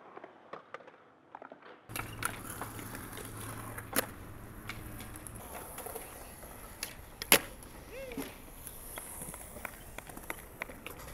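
Skateboard rolling on concrete with the sharp clacks of the board and wheels hitting the ground, the loudest about seven seconds in. The first two seconds are quieter, with only light clicks.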